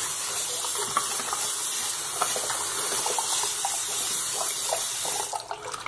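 Bathroom sink faucet running a steady stream into the basin, shut off about five seconds in. A wet microfiber cloth rubs over the porcelain bowl under the running water.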